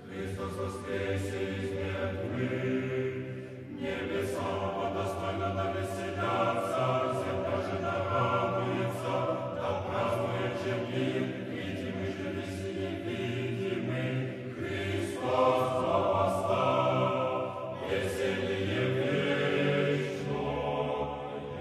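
Orthodox church choir singing a slow liturgical chant, with sustained chords that change every few seconds.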